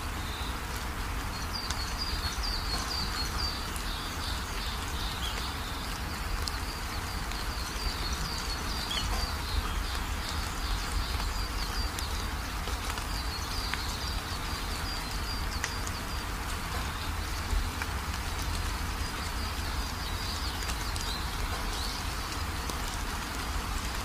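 Steady rain falling, with runs of short, high chirping calls that come and go over it.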